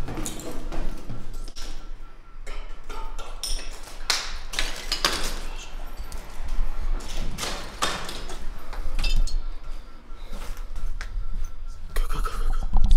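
A house alarm beeping faintly and steadily in short, quick high beeps, under scattered knocks, thuds and rustling.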